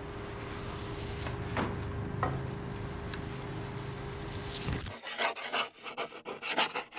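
A steady low hum with a faint held tone, then from about five seconds in a quick run of irregular scratching strokes on wood.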